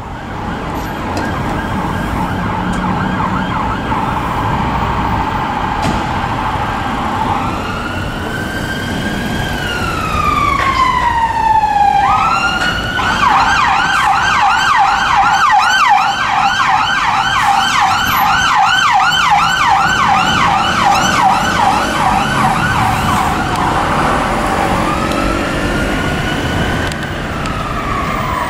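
Volvo FL fire engine's electronic siren, changing mode as it goes: a quick warble at first, then a slow wail rising and falling, then a long run of rapid yelps, and another slow wail near the end. Low engine and road noise runs underneath.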